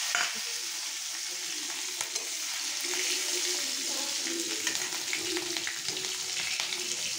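Hot oil sizzling steadily in an aluminium kadhai as chopped green chillies and garlic fry in a spice tempering, with a few light clicks.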